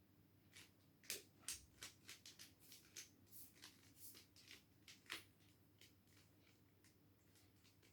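Faint, quick plastic clicks of a 3x3 mirror cube's layers being turned by hand. A rapid run of turns goes from about half a second in to about six seconds in, over a faint steady hum.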